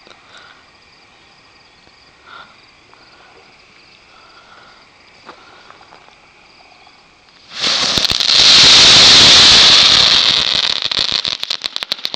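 A ball of fifty-plus crackler fireworks going off. A dense, loud crackling starts suddenly about seven and a half seconds in, holds for a few seconds, then thins into separate sharp pops near the end.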